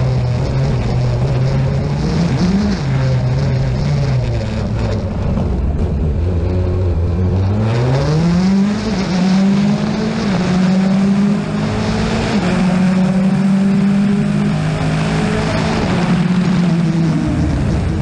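Rally car engine running hard on a special stage. The revs sag about five seconds in, climb sharply about eight seconds in, then hold high with small drops and steps as it works through the gears.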